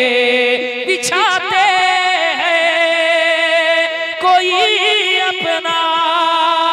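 A man singing an Urdu naat into a microphone in a slow, melismatic style. He draws out the word "bichhate" in long held notes with wavering ornaments.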